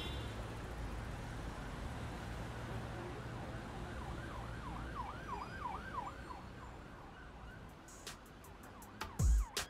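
City traffic rumble with an emergency vehicle's siren wailing in quick rising-and-falling sweeps from about four to seven seconds in. Near the end, heavy bass thumps of an intro music track begin.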